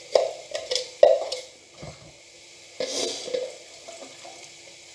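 Diced potatoes and vegetables sizzling in a frying pan while a utensil scrapes and stirs them: several short scraping strokes in the first second and a half, then a louder hiss about three seconds in.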